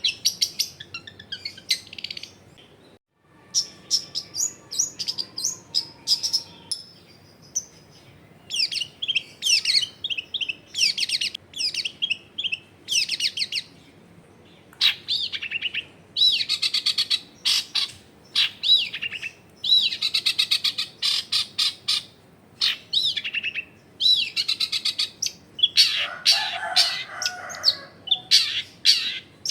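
Long-tailed shrike (cendet) calling in quick runs of short, sharp high notes, its repeated "toet toet" call, with a brief break about three seconds in and a rougher, lower-pitched stretch near the end.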